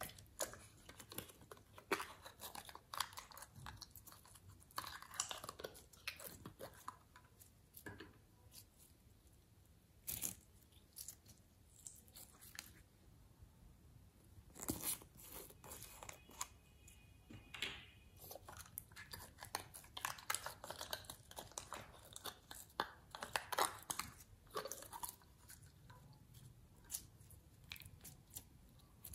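Clear glitter slime being squeezed out of its plastic containers and kneaded by hand: an uneven run of small wet clicks and pops.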